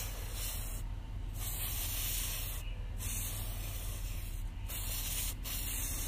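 Aerosol can of CRC De-squeak spraying a gritty anti-squeal compound onto a bicycle disc brake rotor, hissing in about five short bursts with brief pauses between them.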